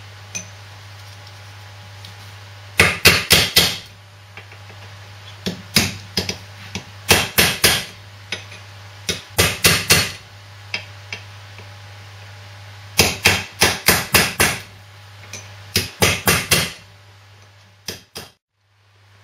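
Hammer striking a steel drift punch in quick runs of several sharp metallic blows, with short pauses between runs, driving a main ball bearing off a 1939 Lister D stationary engine's crankshaft held in a vise. A steady low hum sits underneath.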